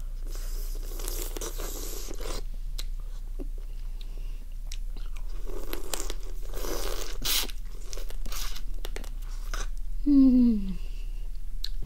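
Teeth crunching through raw crab shell, with chewing in several bouts. About ten seconds in comes a short hum through closed lips, falling in pitch.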